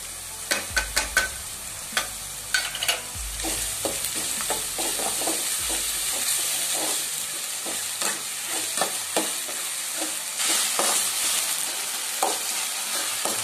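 Chopped onions and curry leaves frying in hot oil with a steady sizzle, while a perforated steel ladle stirs them, scraping and clicking against the pan again and again.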